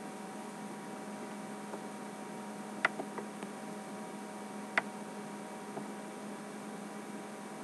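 Steady electrical hum with a faint hiss, broken by two short, sharp clicks about three and five seconds in and a couple of fainter ticks.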